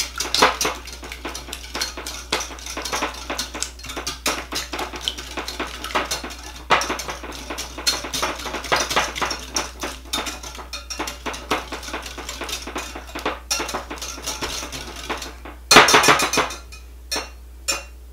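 Metal wire whisk beating an egg and cream mixture in a glass measuring cup: fast, continuous clicking of the wires against the glass. A brief louder clatter comes near the end, then the whisking stops.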